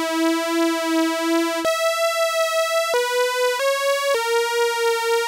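u-he Diva software synth playing a monophonic lead from two sawtooth oscillators detuned a couple of cents apart in opposite directions. The detuning gives a slow, wavering phasing between them, with a light vibrato. A held note ends about a second and a half in, then four more notes follow: a jump up, then a short run lower, each note changing cleanly, with the last one held.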